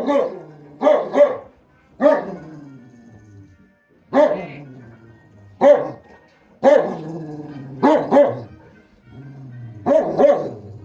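A dog barking repeatedly, about a dozen barks in singles and quick pairs, each dropping in pitch, with a low drawn-out grumble after several of them: demanding, frustrated barking over its food.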